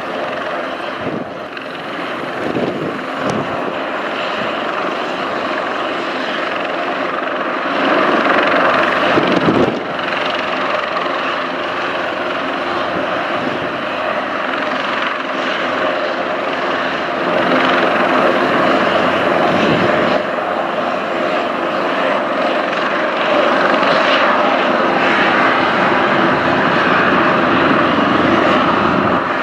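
Airbus H225 twin-turboshaft helicopter running on the ground with its main rotor turning. It makes a loud, steady turbine and rotor sound made of several held tones, swelling louder a few times.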